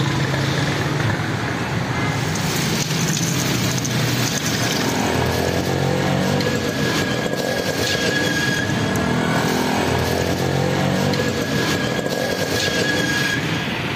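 Busy street traffic: motorcycle and car engines running and passing close by, their pitch rising and falling as they go. A thin, steady high tone runs through the middle of the stretch.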